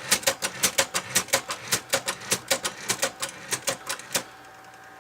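Sears SR2000 electric typewriter keys being struck in a fast, even run of sharp clacks, about five a second, stopping about four seconds in.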